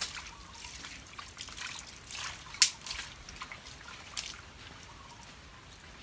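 Water splashing and dripping in a tub as a puppy is lathered and rinsed by hand, with one sharper splash near the middle.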